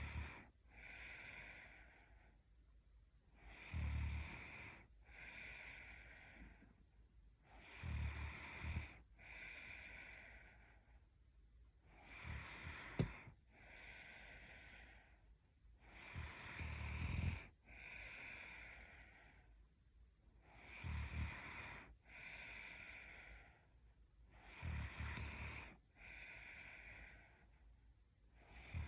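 A young woman snoring in her sleep, with slow regular breaths about four seconds apart: each a low rattling snore followed by a softer, breathy exhale. A single sharp click sounds about halfway through.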